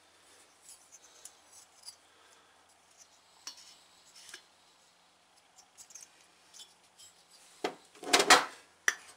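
Small two-stroke engine parts, the cylinder and crankcase of a Stihl SH86C blower, handled on a workbench: light metal clicks and taps, then a burst of louder knocks and clatter about eight seconds in, and two more sharp knocks near the end.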